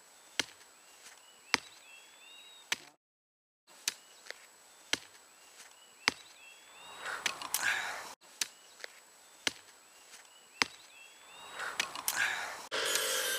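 A hand tool striking the ground in steady, even strokes, about one a second, as someone digs. Twice a rising rush of noise swells up between the strokes.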